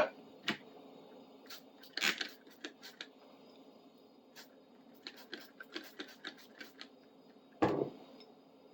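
Handling noises of a metal clamp being picked over: scattered light clicks and taps, with a louder rub about two seconds in and another near the end.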